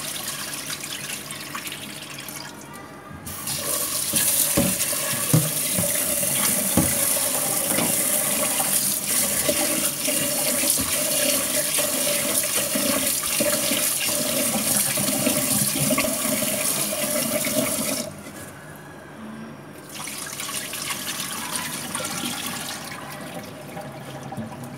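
Kitchen tap running hard into a plastic rice-cooker bowl while glutinous rice is swished and rinsed by hand in a stainless steel sink. The tap comes on about three seconds in and shuts off around eighteen seconds, with quieter sounds of cloudy rinse water being poured off the rice before and after.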